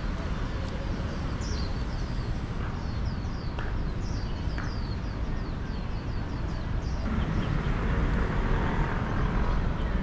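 Small birds chirping repeatedly, short downward-sliding calls a few times a second, over a steady low rumble of city traffic that grows louder about seven seconds in.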